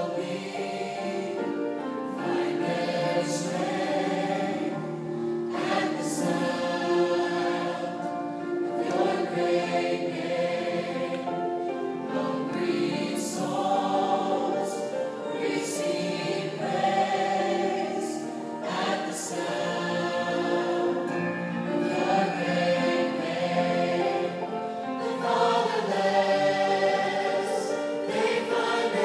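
A choir singing a worship song in harmony, many voices holding chords together, with sharp consonant sounds marking the phrase changes.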